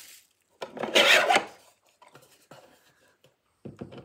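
A 3D-printed plastic diamond-painting tray pulled out of its slotted 3D-printed holder: one rasping scrape lasting about a second, followed by a few light plastic taps and clicks near the end.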